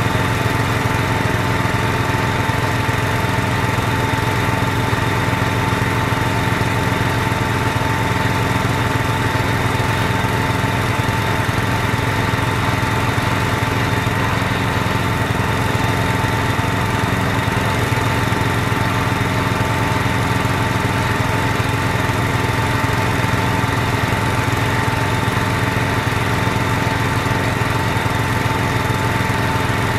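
Engine powering a homemade hydraulic water-well drilling rig, running steadily at an even speed while the rig drills the well.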